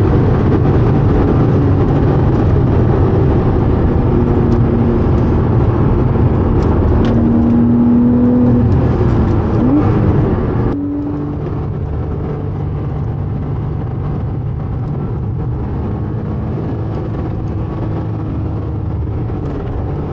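Porsche 987.2 Cayman S's 3.4-litre flat-six running under load on track, its pitch shifting with revs over heavy road noise. About eleven seconds in it cuts abruptly to a steadier, slightly quieter drive.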